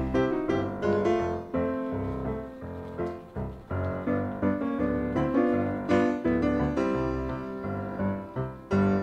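Background piano music, with notes struck one after another throughout.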